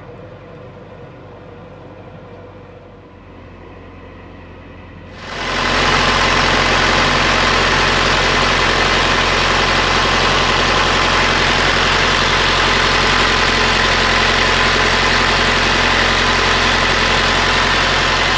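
A narrowboat's inboard diesel engine idling steadily, quiet at first and then suddenly much louder and close about five seconds in. The owners think this engine overheated and boiled over its coolant after working hard through thick duckweed.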